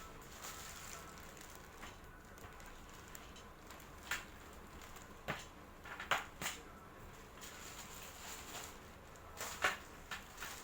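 Handling noises in a small room: a few brief, scattered rustles and knocks, about six in all, over a low steady background hiss.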